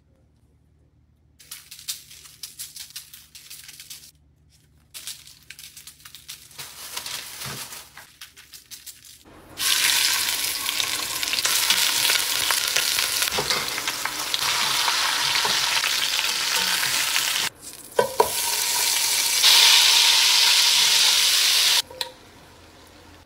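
Chicken thighs sizzling loudly as they sear in hot oil in an enamelled pot. The sizzle starts about nine seconds in, breaks off briefly with a sharp knock of a utensil, and stops near the end. Before it there are lighter crackling handling noises.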